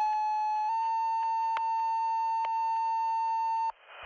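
Two-tone sequential fire dispatch paging tones over a radio: a steady tone for about a second, then a slightly higher tone held about three seconds. A burst of radio static comes right after the tones cut off.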